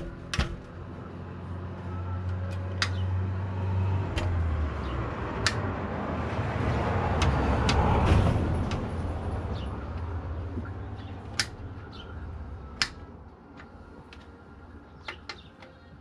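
Sharp metal clicks from the latch clips of a truck's air filter housing cover being handled, over the sound of a passing vehicle that swells to a peak about eight seconds in and then fades.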